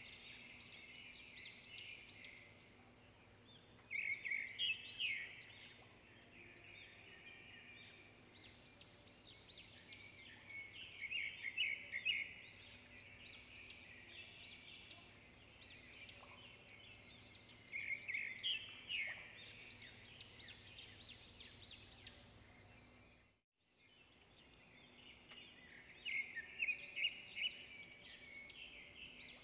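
Birds chirping in repeated short phrases of quick high notes over a faint steady hum. The sound cuts out briefly about 23 seconds in.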